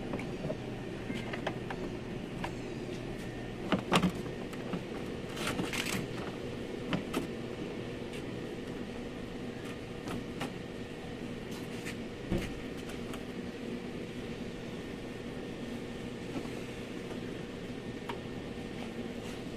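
Plastic door trim panel being handled and pressed into place on a van door: scattered clicks and knocks, the loudest about four seconds in, over a steady background hum.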